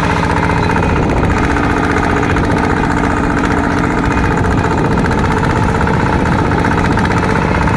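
Single-cylinder diesel engine of a small two-wheel tractor running steadily, its firing thuds coming fast and even.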